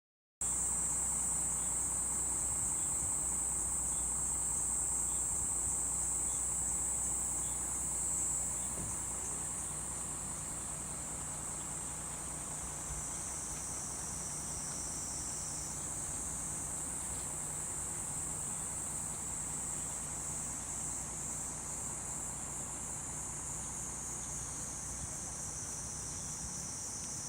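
Summer insect chorus: a steady, continuous high-pitched buzzing that sinks a little in pitch about halfway through.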